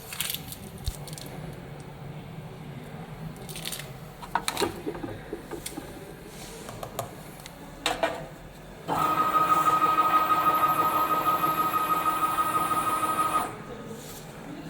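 Spice powder filling machine running one dosing cycle: a steady whine that starts abruptly about nine seconds in and cuts off four and a half seconds later. Before it come scattered light clicks and knocks of handling at the machine.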